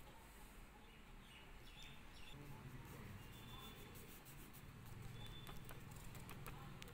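Near silence: a faint low room hum with a few short, faint high chirps and soft clicks.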